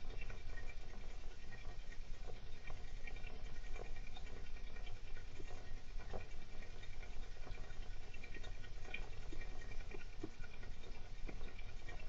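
Golden hamster scratching and rustling about, a steady, uneven scatter of small clicks and scrapes.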